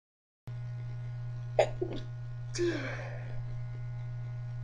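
A person's half-stifled sneezes: a sharp, brief burst about a second and a half in with two smaller catches right after, then a longer breathy burst with a falling voice about a second later, over a steady low hum.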